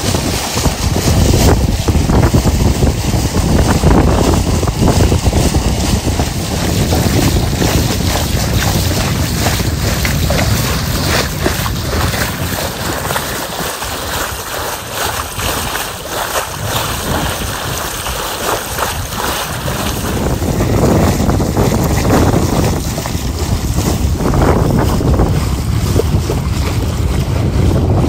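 Lake water rushing and splashing along the hull of a Hunter Legend 37 sailboat under way, with wind buffeting the microphone as a loud low rumble.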